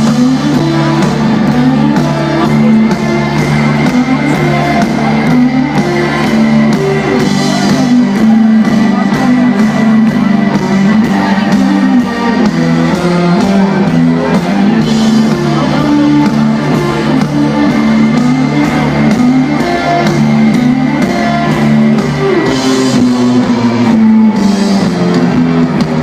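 Live rock band playing loud, with a low repeating riff and drums.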